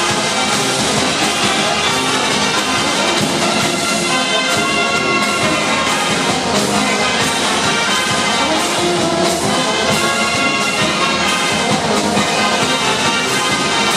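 Marinera dance music played on brass instruments over a steady percussion beat.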